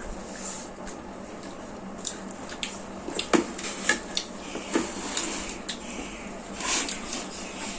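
Dishes and cutlery clinking as people eat a meal: scattered short taps and clicks, sparse at first and coming often from about two seconds in.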